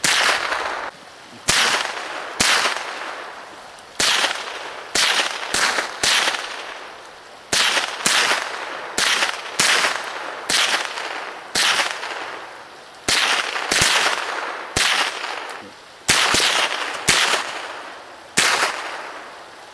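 Semi-automatic .22LR rifle fire: about twenty sharp shots at uneven intervals, roughly half a second to a second and a half apart, each trailing off in an echo.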